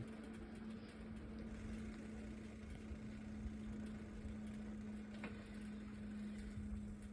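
Bicycle riding along a road: a steady hum holding one pitch throughout, over a low rumble of wind and rolling tyres.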